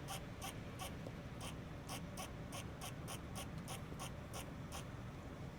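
Squirrel giving a rapid series of short, high calls, about three a second and coming a little faster in the middle, over a steady low rumble.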